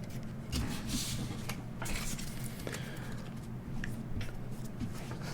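Pokémon trading cards being handled and slid over one another, a run of soft irregular rustles and flicks.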